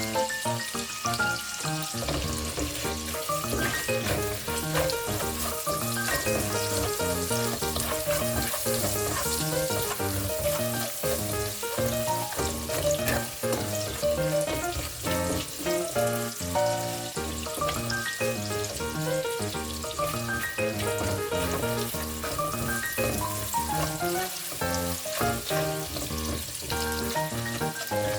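Food sizzling as it fries in a pan, a steady crackling hiss, with background music playing over it.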